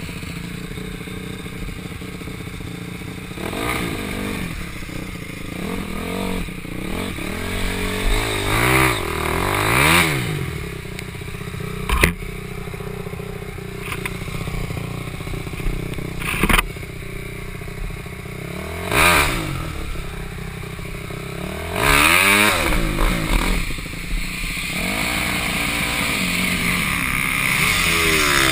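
Dirt bike engines running, revving up and down several times, with a couple of sharp knocks partway through.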